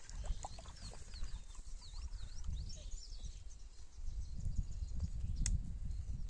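Small birds chirping in quick, high, up-and-down chirps, mostly in the first half, over a low rumble of wind on the microphone. There is one sharp click near the end.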